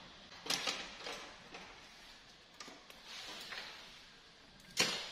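Incense sticks scraping and tapping on a granite tile floor: a few scattered light clicks, a brief scrape about three seconds in, and a sharper click near the end.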